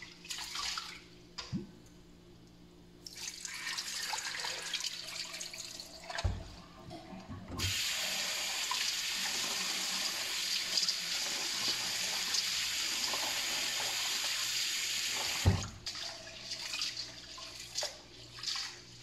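Kitchen tap running into a stainless steel bowl while raw chicken pieces are rinsed and rubbed by hand, with splashing. The tap runs steadily for about eight seconds in the middle. It stops with a knock, and hand-washing splashes follow.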